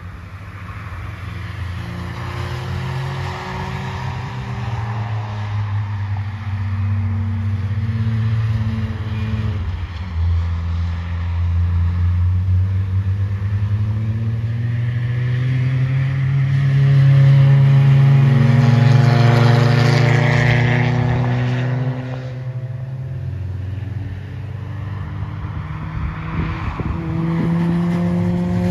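Cars at speed on a race circuit: engines pulling up through the gears in rising sweeps and lifting off, with one car passing close and loudest about two-thirds of the way through. The sound drops away suddenly soon after, and another pull rises near the end.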